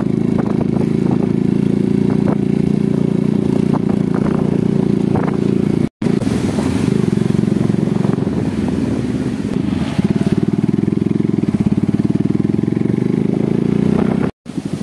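Motorcycle engine running steadily under way, heard from the rider's seat, with a few light knocks and rattles in the first half. The sound cuts out completely for an instant twice.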